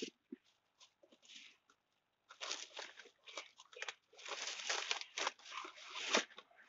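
Irregular crinkling and rustling close to the microphone, busiest in the second half, with one sharp click at the very start.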